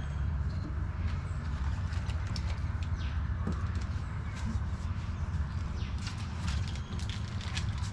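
Scattered small clicks and crackles as ripe palmyra fruits are handled and their skins peeled by hand, over a steady low rumble.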